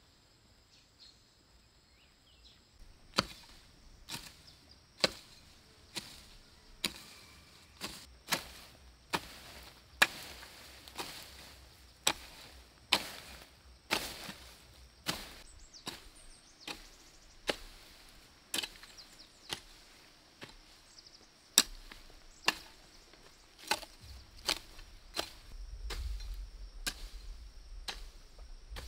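Hoe chopping into garden soil, a steady run of sharp strikes about once a second, starting about three seconds in.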